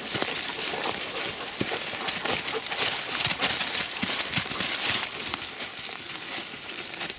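Quick, uneven footsteps crunching and rustling through dry fallen leaves.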